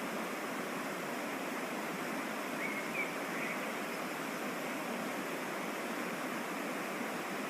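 Waterfall on a mountain stream, its water rushing in a steady, even hiss. A short, higher-pitched sound comes through about three seconds in.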